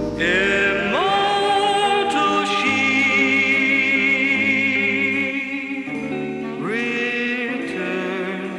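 A song playing: a singing voice holds long, wavering notes over sustained backing chords, swooping up into a new note about a second in and again near the end.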